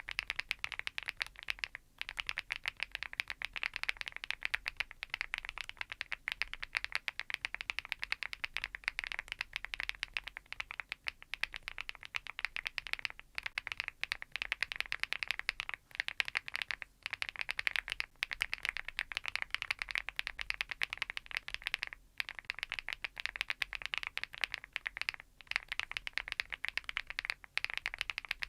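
Fast typing on an Archon IX Pro full-aluminium tenkeyless mechanical keyboard: a dense run of key clacks, broken by short pauses every few seconds.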